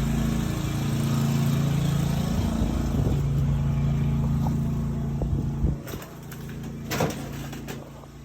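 Sewer water jetter's engine running steadily, dropping in level about six seconds in, followed by a couple of sharp knocks.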